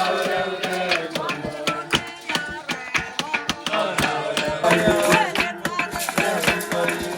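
Music: a singing voice over fast, busy drumming.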